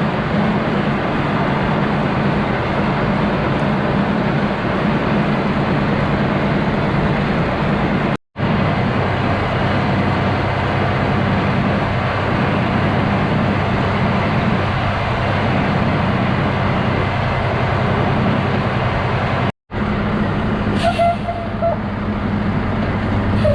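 Logging truck's diesel engine running steadily while under way, heard from inside the cab, with a brief squeal near the end.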